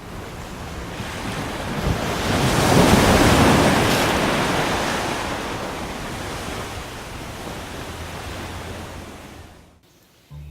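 A long rushing noise, like surf or wind, swells to a peak about three seconds in, fades slowly, then stops shortly before the end.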